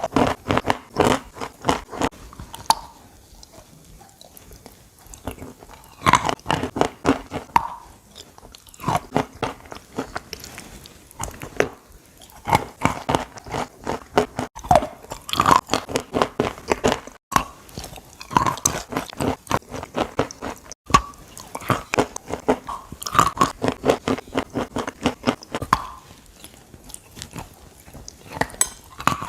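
Close-up biting and chewing of crunchy chalk coated in chalk paste: runs of crisp crunches a few seconds long, separated by short pauses.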